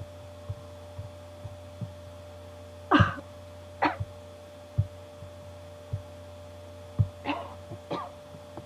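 A person with a sore throat coughing into a laptop's built-in microphone: two coughs about three seconds in and two more near the end. A steady electrical hum runs underneath, with faint soft knocks in between.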